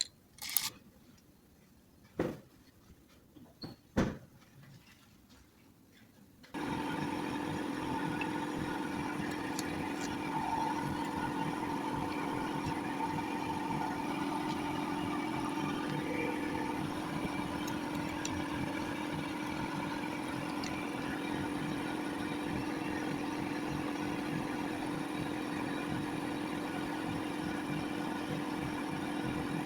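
A few sharp clicks, then about six and a half seconds in a Toyota Camry's engine and alternator are heard running steadily, with several steady tones over the engine noise. The sound is presented as that of a bad alternator.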